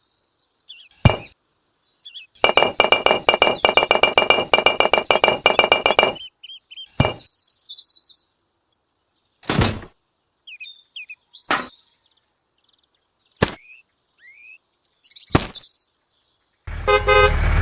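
A string of rapid ringing clinks lasting about four seconds, then single sharp knocks every two seconds or so, with short high chirps between them.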